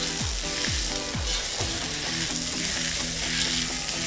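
Onion pieces and sunflower oil sizzling steadily on a hot iron griddle as a metal spatula presses and scrapes them across the plate. This is the onion stage of seasoning the griddle to make it non-stick.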